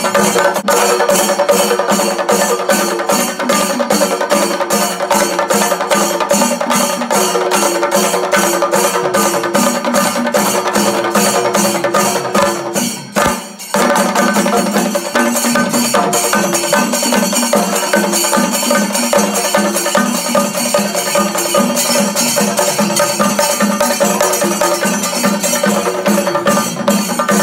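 Music with a fast, steady percussion beat over sustained pitched tones. It drops out briefly about halfway through.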